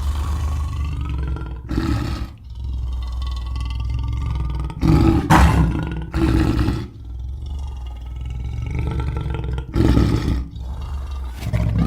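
Lion growling in a continuous low rumble, breaking into louder roars about five times.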